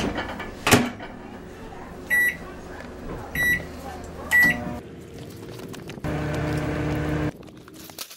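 Countertop microwave oven: the door is shut with two clacks, three short keypad beeps follow as the time is entered, and then the oven starts running with a steady hum that cuts off abruptly.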